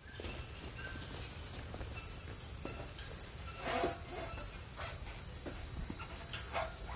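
Insects chorusing outdoors, a steady high-pitched drone, with a faint low rumble underneath and a few faint short chirps about four seconds in.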